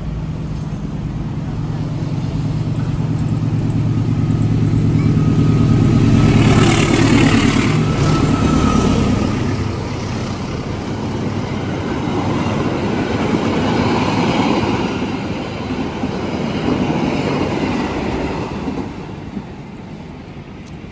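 Diesel-hauled passenger train passing close by. The locomotive's steady engine hum is loudest about six or seven seconds in, then the coaches' wheels roll past on the rails and fade away near the end.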